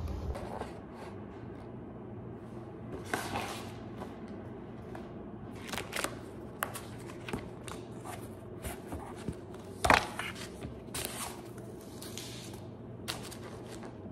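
Handling noises of a tablet in a folio case and its packaging on a countertop: scattered rustles and soft taps, with one sharper knock a little under ten seconds in.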